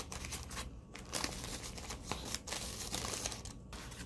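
Paper sandwich wrapper of a Subway foot-long rustling and crinkling as hands unfold it, in a run of short, uneven crackles.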